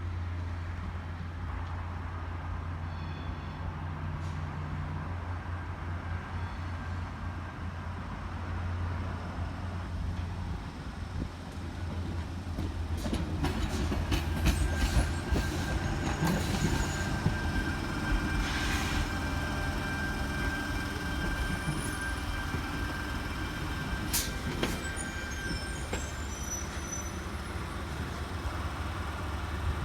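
Sydney Trains Tangara electric train moving slowly over points into the yard: a steady low electric hum, with clicks of the wheels over rail joints and points from about halfway through and a thin, steady wheel squeal in the second half.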